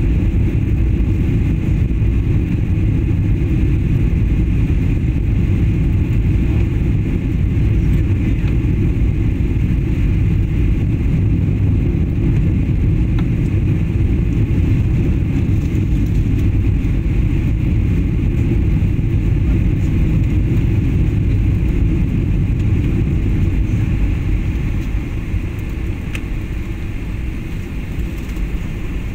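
Steady low rumble of a jet airliner's engines and rushing air heard inside the cabin on final approach to landing. The level drops slightly near the end as the plane comes down onto the runway.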